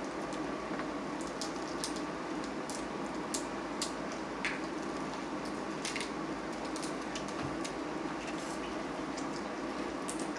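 Steamed blue crabs being picked apart by hand: irregular small cracks and clicks of shell breaking and meat being pulled out, over a steady background hum.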